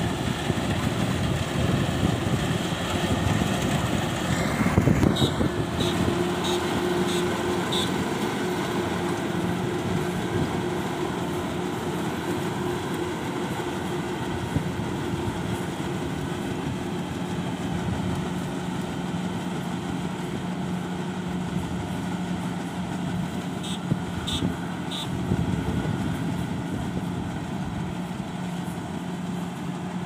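Kubota DC-105X rice combine harvester running steadily as it cuts and threshes, a constant diesel engine and machinery drone with a steady hum. A few short high chirps sound over it about five to eight seconds in and again near 24 seconds.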